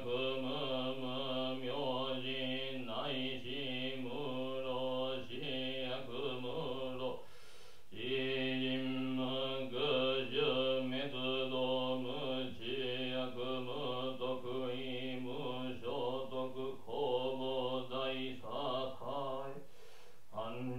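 A Jōdo Shinshū Buddhist priest chanting a sutra aloud from a text, one male voice on a steady low monotone. He pauses briefly for breath about seven seconds in and again near the end.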